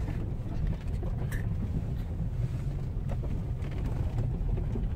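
Car running slowly over a rough, muddy dirt track, heard from inside the cabin: a steady low engine and tyre rumble with a few faint clicks and knocks.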